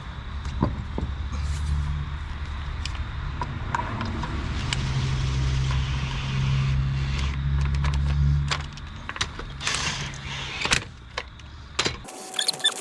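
Scattered metallic clicks and clinks of wheel bolts and hand tools as a car wheel is bolted onto its hub, over a steady low hum that stops about two-thirds of the way through.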